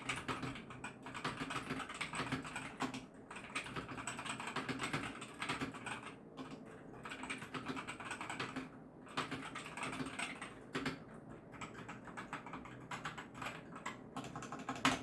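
Typing test on a Gamakay mechanical keyboard with Gateron switches: a rapid, continuous run of key clacks, with a couple of brief pauses. The keys are plainly audible.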